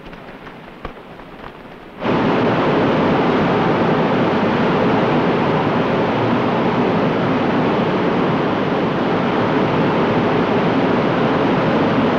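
Loud, steady rush of a waterfall pouring into a plunge pool, cutting in abruptly about two seconds in. Heard off a worn 16mm film soundtrack.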